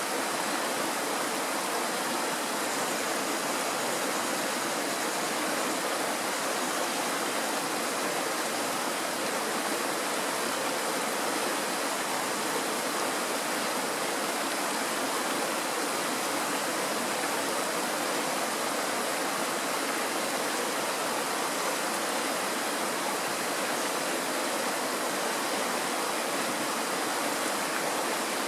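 Shallow mountain stream flowing over a stony bed and a small riffle: a steady rush of water.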